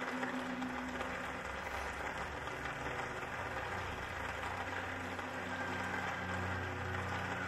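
A low, steady drone with a faint hiss, its low notes shifting slightly in pitch and level over a few seconds.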